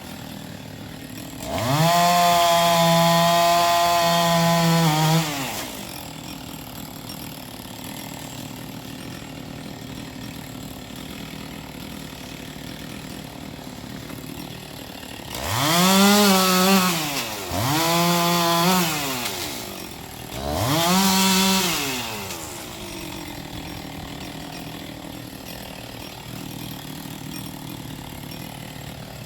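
Two-stroke chainsaw revving up to full throttle for about four seconds and dropping back to idle, then three shorter bursts of throttle about halfway through, idling in between, as logs are cut to length.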